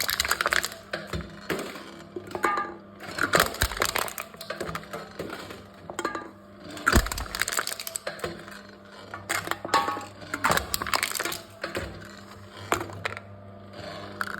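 Aluminium cans being crushed by a machine: repeated crunching and crackling of buckling metal in clusters every second or two, with a sharp low thud about seven seconds in. A steady low hum runs underneath.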